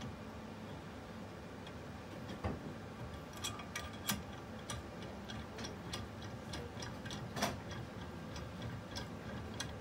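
Light, irregular clicks and taps of metal parts as the clamp of a Medtronic Vertek stereotactic biopsy arm is set back in position and tightened by hand.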